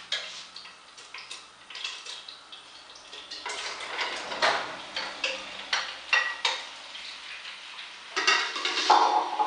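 Sliced potatoes scraped off a plate with a utensil into a cocotte of very hot duck fat: repeated clicks and clatter of the utensil on the plate and pot over sizzling fat, busier and louder in the second half.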